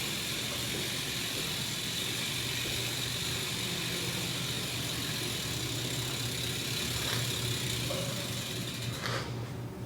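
Steady low mechanical hum under an even hiss, which drops away sharply near the end.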